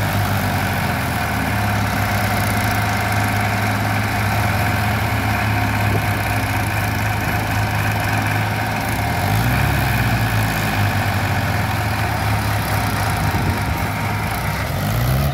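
Diesel tractor engines working under load as a Ford 3620 tows a Mahindra 575 tractor and its loaded sugarcane trolley. The engine note runs steadily, with the revs rising briefly about nine seconds in and again near the end.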